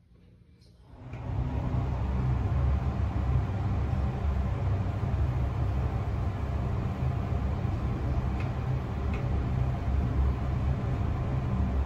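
Passenger elevator car travelling upward: a steady low rumble and hum of the ride, starting about a second in.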